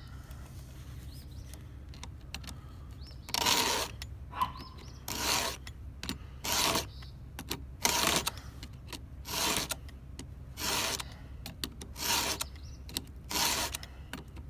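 Hand files in a two-in-one guide filing a chainsaw chain: after a few quiet seconds, about nine even strokes roughly a second and a half apart. Each stroke sharpens a cutter tooth and lowers its depth-gauge raker at the same time.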